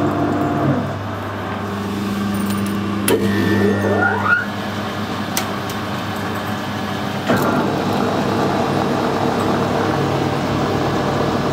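Metal lathe power-tapping a thread into an aluminium alloy bar, with the tap held in a tailstock collet chuck. The spindle runs, stops about a second in, a rising whine follows around three to four seconds in, and the lathe starts up again suddenly about seven seconds in and keeps running.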